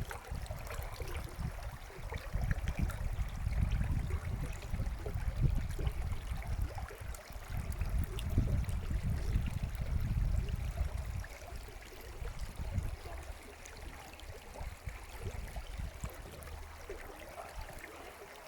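Stream water flowing and trickling steadily over a low rumble, which weakens about eleven seconds in.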